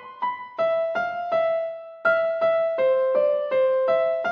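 Background music: a gentle piano-like keyboard melody of single struck notes, about three a second, with one longer held note midway.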